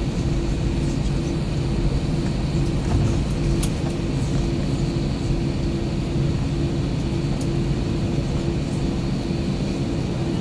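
Steady engine drone of an Airbus A321 airliner taxiing, heard inside the passenger cabin. It is a constant low hum with a faint high whine over it.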